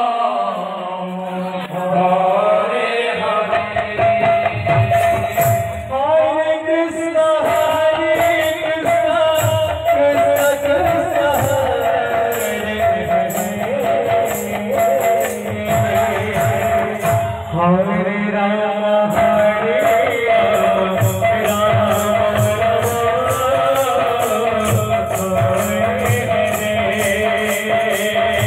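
Odia kirtan: a male lead singer chants a devotional melody through a microphone, accompanied by a double-headed barrel drum (khol). A few seconds in, hand cymbals join with a steady, rapid beat.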